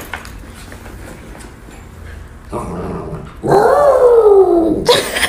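Small white dog vocalizing: one long call a little over a second long, slowly falling in pitch, about three and a half seconds in, after a quieter sound. A short noisy burst follows near the end.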